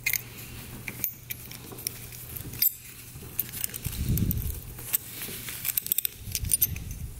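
Small metallic clicks and clinks of a carburetor slide, return spring, jet needle and retaining plate being handled and fitted together by gloved hands, irregular and scattered.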